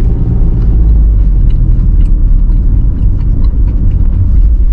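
Steady low rumble of road and engine noise inside a compact car's cabin while it is driving.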